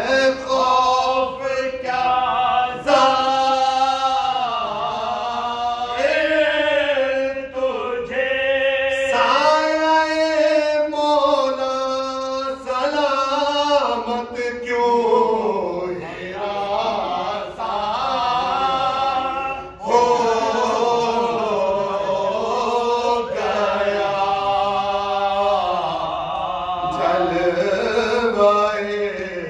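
Unaccompanied male voices chanting a soz, a Shia mourning elegy: one lead voice with two others singing along in held, wavering notes.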